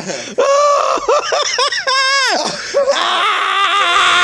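A person laughing loudly in high-pitched shrieks, the pitch swooping up and down.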